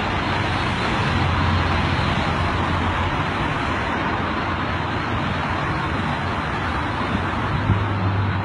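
Steady background noise with a low hum underneath, like distant road traffic.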